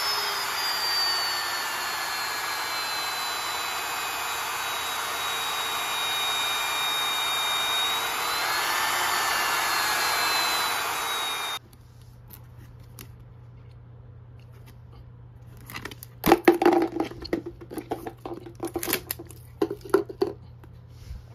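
Triton TRJ001 router's motor running under an add-on SCR speed controller, its whine falling in pitch for several seconds, rising briefly, then holding steady as the controller knob sets the speed; the motor sound cuts off suddenly about halfway through. Later, a light plastic food container is handled, giving a string of sharp clicks and rattles, the loudest sounds here.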